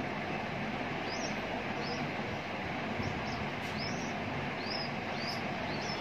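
A nestling bird cheeping while being hand-fed: about ten short, high, rising peeps at irregular intervals. Under them runs a steady hiss and rumble of background noise, which is the louder sound.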